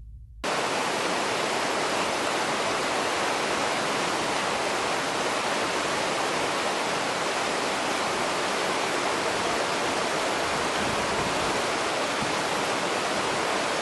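Waterfall: a steady, even rush of falling water that cuts in abruptly about half a second in.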